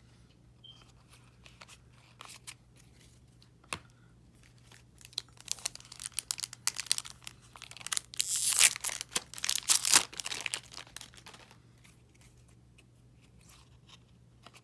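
Hockey card booster pack wrapper being torn open and crinkled by hand: a few light clicks of handling, then several seconds of crackling, tearing noise, loudest about two thirds of the way through, before it falls quiet again.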